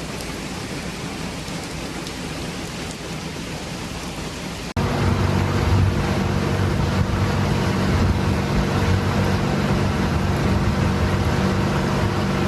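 A steady rain-like hiss. About five seconds in it cuts suddenly to a tour boat's motor running steadily, with water and wind noise over it.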